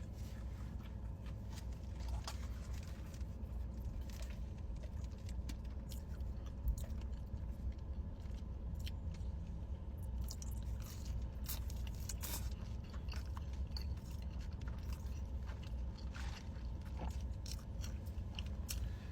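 Close-up chewing and biting sounds of people eating, with scattered small wet clicks and crunches, over a steady low hum.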